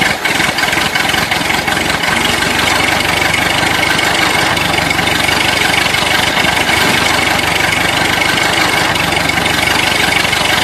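Tractor engine running steadily at idle, an even chugging drone with a thin steady whine above it.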